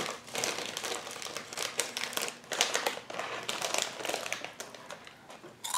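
Plastic snack packaging crinkling and rustling in irregular crackles as it is handled.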